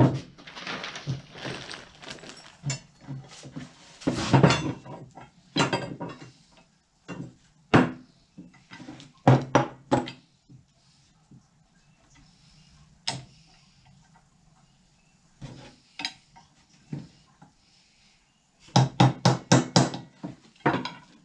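Metal spreader parts and hand tools clanking and knocking as they are handled, with scattered single knocks. Near the end comes a quick run of about eight sharp taps, about four a second, typical of tapping a hex flange bearing flush into its seat.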